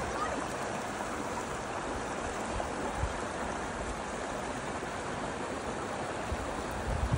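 Shallow mountain stream rushing steadily over and around a logjam of fallen trees, with a few brief low thumps.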